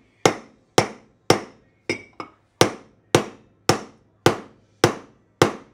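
Hammer blows on the head of a steel bolt, driving a new kingpin bushing into a Datsun truck's steering spindle: eleven sharp strikes about two a second, two lighter ones a little before the middle.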